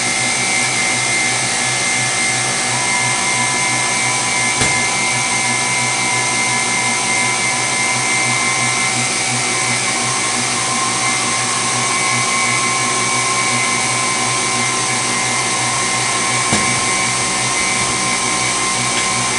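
Electric stand mixer running steadily at high speed, its whisk beating eggs and sugar in a stainless steel bowl, with a steady high whine. Two brief clicks come through, about five seconds in and near the end.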